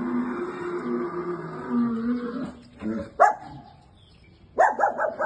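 A dog whining, then one sharp bark about three seconds in and a quick run of four or five barks near the end.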